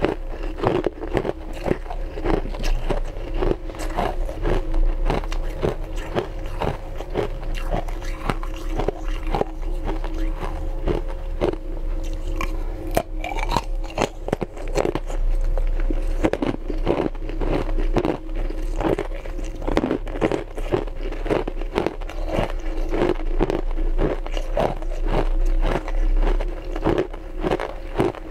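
Close-miked crunching of ice as teeth bite and chew it: a dense, irregular run of crisp cracks, with a faint steady hum underneath.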